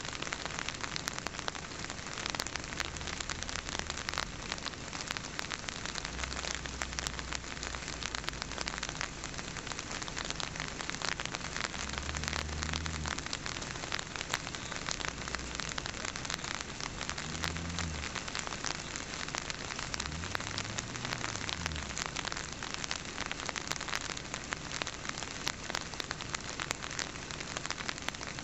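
Steady crackling patter of rain falling. A few faint low hums rise and fall in the middle and later part.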